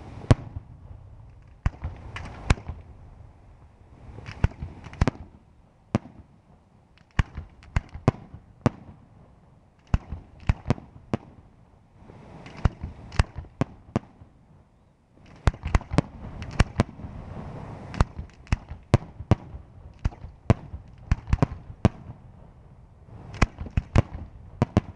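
Aerial firework shells bursting in a display: sharp bangs come in clusters every second or two, with a low rumble underneath between them.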